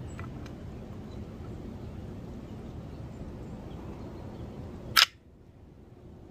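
Steady low rumbling noise, then a single sharp click about five seconds in, after which the background falls quieter.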